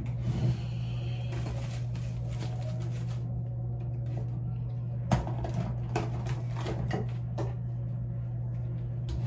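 Light knocks and clatter of items being handled on a bathroom counter over a steady low hum, the sharpest knock about five seconds in.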